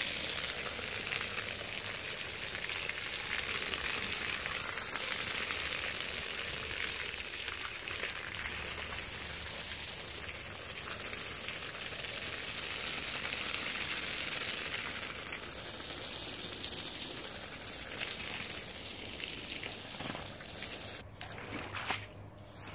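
A steady stream of water pouring and splashing onto a soapy, soaked shag rug, rinsing the foam out of the pile. Near the end the pouring stops and a squeegee is pushed across the wet pile, with a sharp knock.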